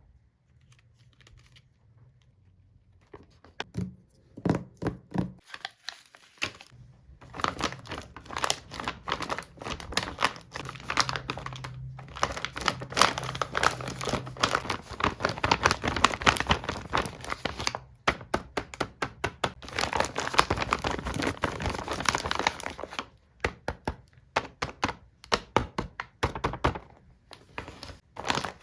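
Plastic and paper packaging crinkling and tearing as stationery is unboxed, with scattered taps and clicks. It starts quietly with a few taps, becomes a dense run of crinkling in the middle, and thins out to separate taps and clicks near the end.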